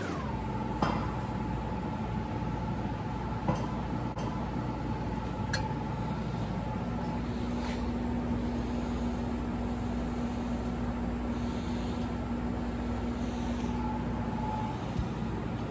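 A steady machine hum with a low rumble and a held whine that falls in pitch at the start, with a few sharp clicks scattered through it.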